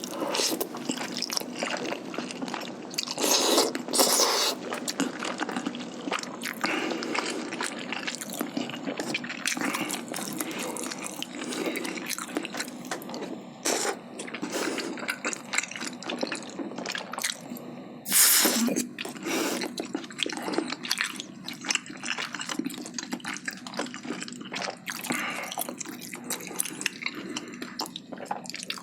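Close-miked wet chewing and mouth sounds of eating spicy braised chicken (jjimdak) in sauce. Louder bursts come about three to four seconds in and again around eighteen seconds.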